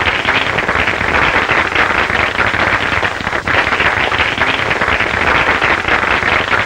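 Audience applauding after a song: a dense, steady clatter of clapping on an old optical film soundtrack.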